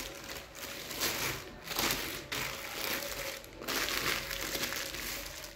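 Sheet of food plastic wrap crinkling as a hand presses and tucks it down over a ball of dough in a bowl, in several separate rustles.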